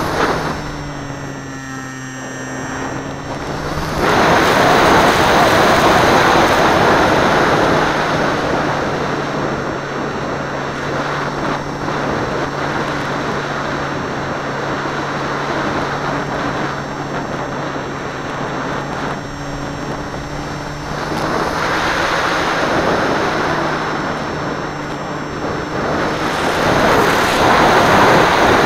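Onboard audio from a Seawind amphibian plane in flight: a steady rush of wind over the airframe and microphone, with the plane's motor humming steadily underneath. It is quieter for the first few seconds, rises about four seconds in, and swells again near the end.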